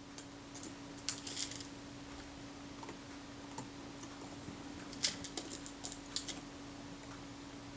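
Light, irregular clicks and ticks of small metal camera parts and screws being handled on a workbench, in small clusters, over a faint steady hum.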